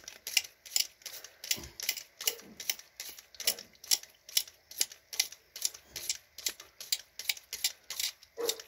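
Ear irrigator pulsing a water stream into an ear canal, making even, sharp ticks at about four a second, with water spattering into a basin held under the ear.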